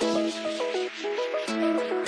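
Background music: an upbeat electronic track with a quick stepping synth melody over a held bass note.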